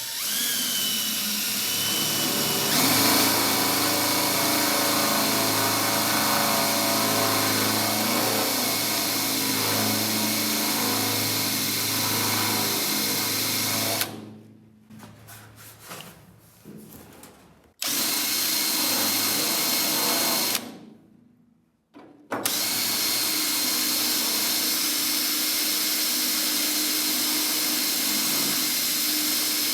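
Electric drill with a 1/4-inch bit drilling holes in the truck's steel door area. It spins up at the start and runs steadily, stops about halfway with some quieter rattling, then runs twice more with a short pause between.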